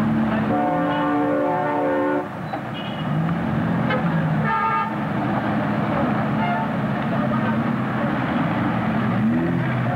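Traffic noise with car horns: one long honk about half a second in, lasting nearly two seconds, then shorter honks around three and five seconds in.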